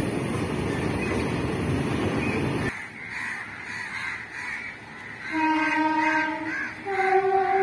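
An empty freight train rolls past with a dense, steady rumble that cuts off abruptly. A few seconds later, a horn sounds two long notes, the second one higher.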